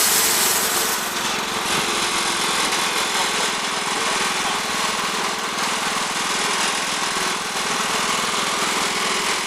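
Wood-Mizer band sawmill running. Its sawing noise eases off about a second in, and then the mill's engine keeps running steadily.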